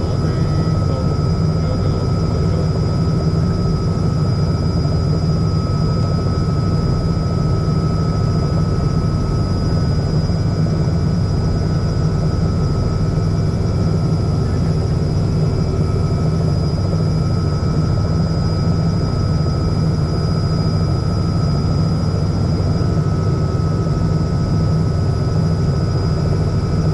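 Helicopter engine and main rotor running steadily on the ground, heard from inside the cabin: a deep, even hum with a steady high whine over it.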